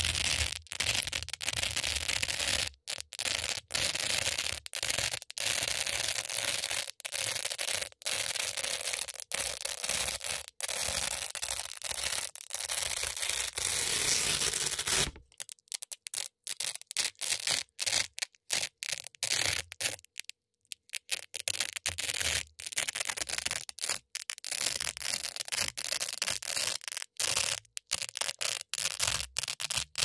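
Hook-and-loop (Velcro) strips crunching and crackling close to the microphone as they are worked against each other. The crackle is dense and continuous for about the first half, then comes in choppier runs broken by short pauses, with a brief silence about two-thirds of the way through.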